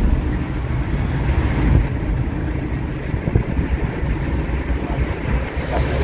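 A motor vehicle travelling, with a steady low rumble and wind noise on the microphone.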